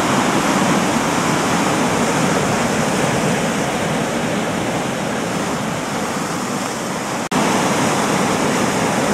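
Sea surf breaking and washing over volcanic shore rocks: a steady, loud rush of water, broken for an instant about seven seconds in.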